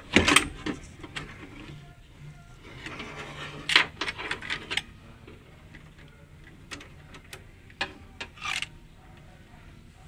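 Metal clicks, knocks and scrapes from a car door lock and actuator assembly being handled and worked out of the inside of the door. The loudest is a sharp clatter at the very start, with a cluster of quick clicks about four seconds in and a few more near the end.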